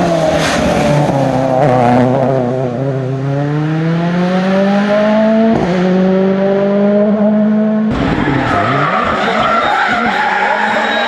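Turbocharged four-cylinder engines of Ford Fiesta rally cars at full stage speed. The first car's note falls as it goes by, then an engine climbs steadily in pitch through a long pull and holds high. About eight seconds in, another car brakes for a corner, its engine note dipping and rising, with tyre noise.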